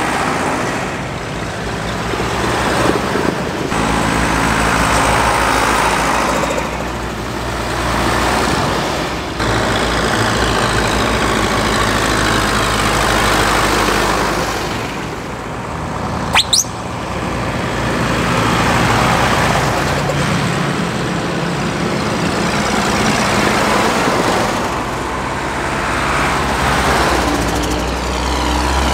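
Diesel engines of MB trac tractors, one an MB trac 900 turbo, driving past one after another, each engine swelling as it nears and fading as it goes by. About halfway through a brief high whistle falls in pitch.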